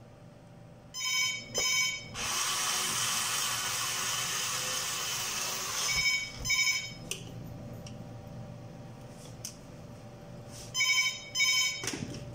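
A phone ringtone rings in double pulses about every five seconds, three times. Between the first two rings a cordless Black & Decker screwdriver runs for about four seconds, driving a screw into the monitor's plastic case.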